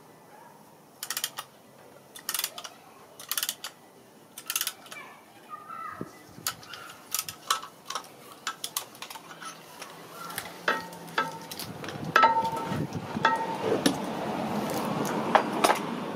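Metal clinks and scraping from a screwdriver working at the front brake caliper of a 2013 BMW 335i. At first a sharp tap about once a second, then a quicker clatter with scraping and a few short metallic rings as the caliper is handled.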